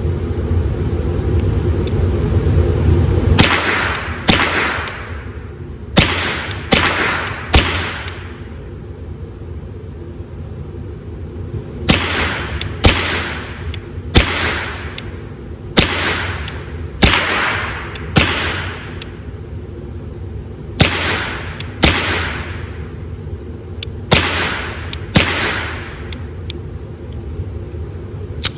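An AR-15 converted to .22 Long Rifle with a CMMG Bravo conversion kit firing about fifteen shots in ones and twos at an uneven pace, each crack trailing off in a short echo, over a steady low rumble.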